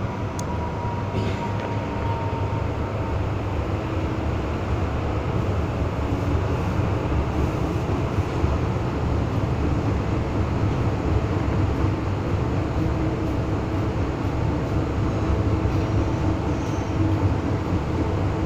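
Interior running noise of an MTR M-Train passenger car: a steady low rumble of wheels on rail and running gear, with a faint whine that drifts in pitch.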